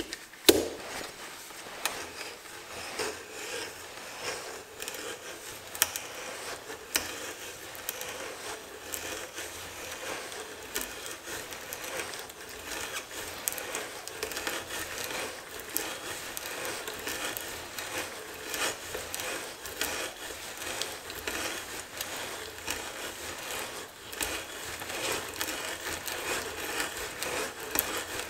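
Old hand brace turning a 1-inch auger bit through a wood block: a continuous crackling, shaving sound of the bit cutting and lifting curled chips, with scattered sharp clicks and one louder click about half a second in.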